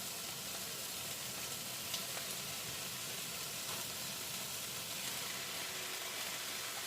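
A pan of vegetables cooking on the stove with a steady, even sizzle.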